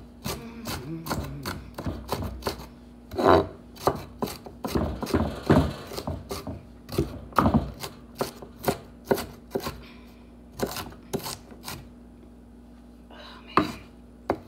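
Kitchen knife chopping celery on a wooden cutting board: quick, sharp knocks of the blade on the board, about three or four a second, with a brief pause near the end.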